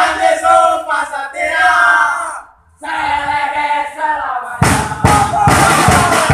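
Football supporters chanting together in held, sung lines, with a short break. About two-thirds of the way through, loud drumming comes in under a fuller crowd chant.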